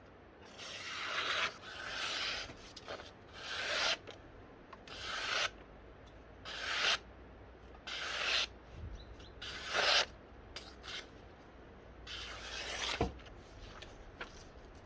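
Slow rubbing strokes of a hand abrasive tool working the axe, about eight strokes each swelling louder to its end, then a few light clicks near the end.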